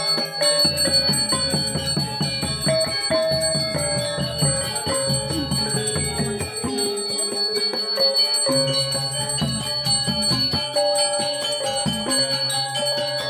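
A Balinese priest's handbell (genta) is rung continuously during temple prayers, a steady high ringing. Underneath it runs ceremonial music of many held, pitched metallic notes with a rhythmic lower pulse.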